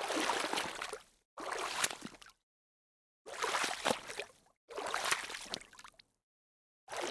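Water splashing in a series of separate bursts, each about a second long and fading out, with complete silence between them: five splashes.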